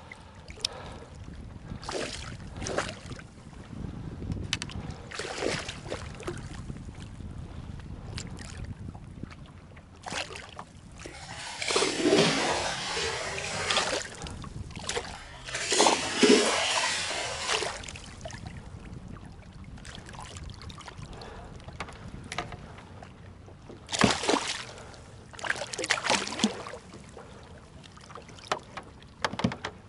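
Water lapping against a small fishing boat with wind on the microphone, broken by louder splashing and rustling bursts about twelve and sixteen seconds in and several sharp knocks near the end, as a freshly caught pickerel is handled at the boat.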